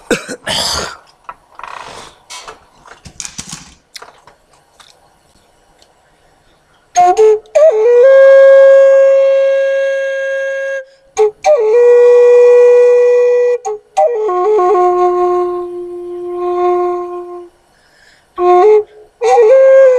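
Flute playing slow, long held notes of about three seconds each, with a short slide into each new note. A few breathy gusts of noise come in the first seconds before the flute starts.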